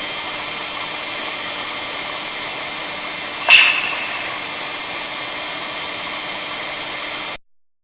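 A single sharp clap with a short ring about three and a half seconds in, over a steady hiss; the recording presents the clap as the clapping sound of the northern lights.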